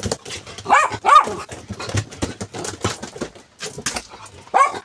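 Dogs giving short whining yips that rise and fall, two close together about a second in and another near the end. Between them, quick clicks and scuffs of paws and claws scrabbling on a tile floor as the dogs jump and move about.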